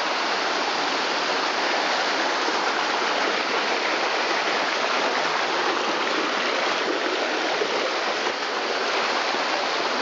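Fast stream water rushing and splashing over rocks in a rocky creek bed, a steady, unbroken rush.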